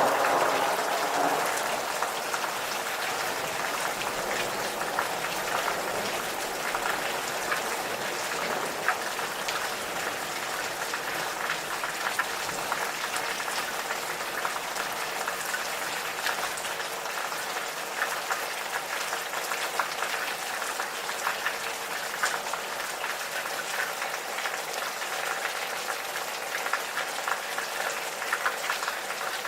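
Steady gentle rain, with dense fine pattering of drops. There is a brief louder swell right at the start that fades within a couple of seconds.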